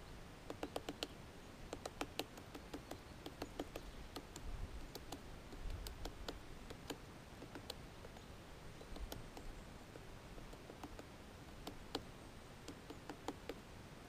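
Great spotted woodpecker pecking at a pine cone wedged in its anvil crevice on a pine trunk: sharp, irregular taps, often in quick runs of three to six, with short pauses between.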